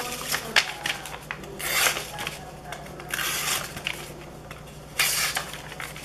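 Sheet of paper rustling as it is handled, and the plain edge of a CRKT Fossil folding knife's stainless drop-point blade slicing through it. There are three brief hissing cutting strokes, about two, three and five seconds in.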